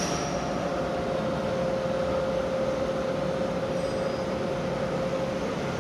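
Steady mechanical hum with a constant tone, even in level throughout.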